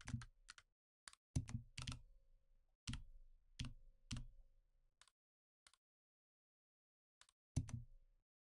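Computer keyboard keystrokes and mouse clicks: about a dozen irregular, sharp taps, some with a dull low thud beneath them.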